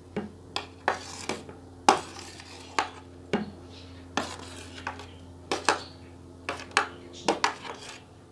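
Metal spoon clinking and scraping against a glass bowl and a tray as grapes are pushed off the tray and tumble into the bowl, in a string of irregular sharp clicks.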